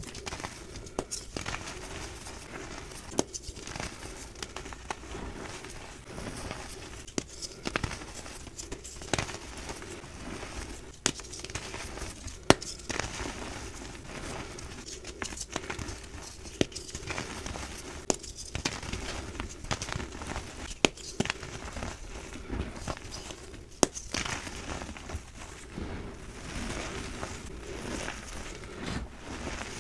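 Reformed gym chalk crushed and crumbled by hand, with many irregular sharp crackles and snaps as pieces break. These mix with the softer crunch of hands working through loose chalk powder.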